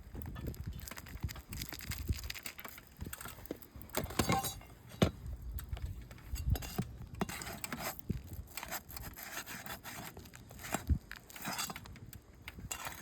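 Roof shingles being lifted and their nails pried out: irregular scraping, crackling and clicking, with a few sharper knocks.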